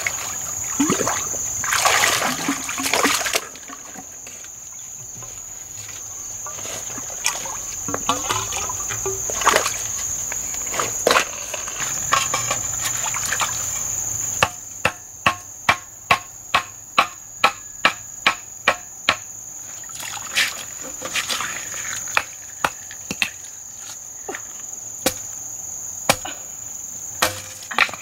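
Water splashing in a shallow stream for the first few seconds, then a string of sharp knocks, about two or three a second and later more scattered, as a stone pounds a wooden stake into the mud. A steady high-pitched insect drone runs underneath.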